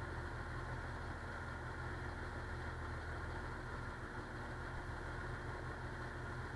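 A river ferry's engine running steadily under way, an even low hum.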